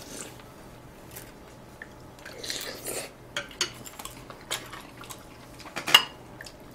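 Chopsticks and spoons clinking against ceramic bowls and plates during a meal, in scattered light taps, with one sharper clink near the end.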